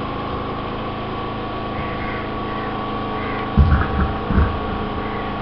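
A steady mechanical hum made of several held tones, with a few short low thumps a little past the middle.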